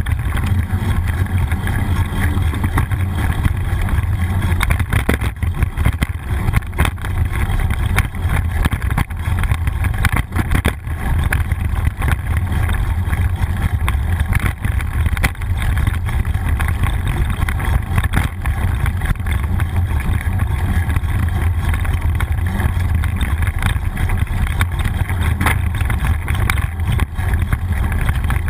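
Wind rumbling steadily on a handlebar-mounted GoPro's microphone as a bicycle rides along a city road, mixed with tyre-on-road noise. Frequent small knocks, typical of the bike and camera mount jolting over bumps, come through it.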